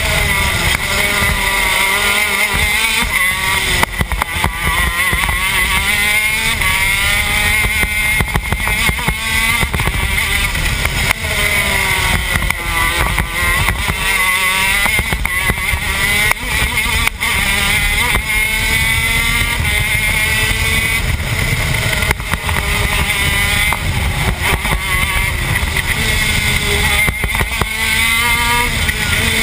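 TM K9c 125cc two-stroke shifter kart engine at racing speed, revving up and down through the gears, its pitch climbing on the straights and dropping away for the corners, again and again.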